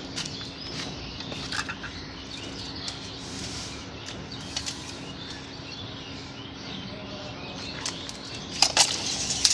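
Small birds chirping in the background over a faint steady hum, with a few sharp knocks near the end.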